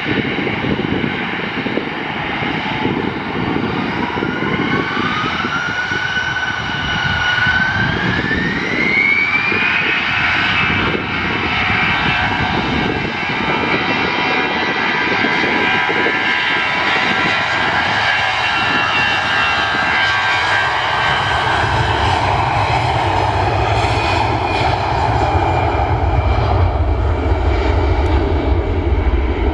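Airbus A320-214's CFM56 turbofan engines spooling up to takeoff thrust: a whine rises in pitch from about four to ten seconds in, then holds steady as the jet starts its takeoff roll. In the last several seconds a deep rumble grows as the aircraft accelerates down the runway.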